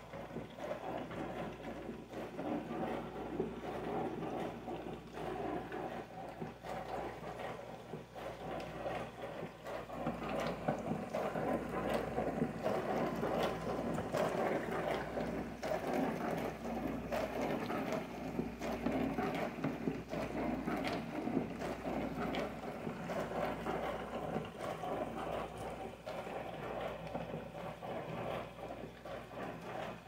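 HAVA R01 compact countertop dishwasher running a wash cycle: a steady motor hum under water spraying and splashing against the dishes and door, with a fine rattling, pattering texture that grows a little louder about ten seconds in.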